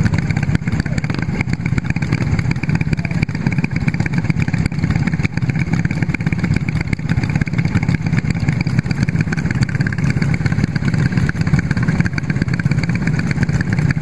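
Racing kart engine (F400 class) idling steadily, heard close up from the kart itself.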